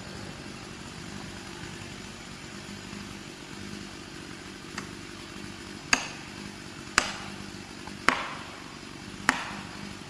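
Felling wedges being hammered into the back cut of a large pine: sharp ringing blows about once a second, one light then four hard, starting about halfway through, over a chainsaw idling steadily.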